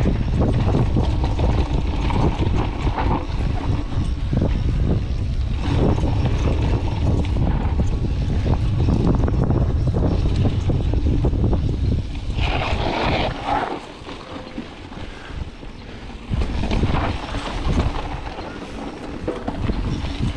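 Wind buffeting the camera microphone on a mountain bike descending a dirt trail, with the bike rattling and clicking over rough ground. The rumble eases for a couple of seconds about fourteen seconds in, and a brief higher-pitched sound comes just before that.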